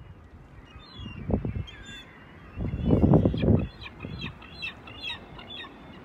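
Gulls calling: scattered short, high calls, then a quick run of them in the second half. Bursts of low rumbling noise come through too, the loudest about three seconds in.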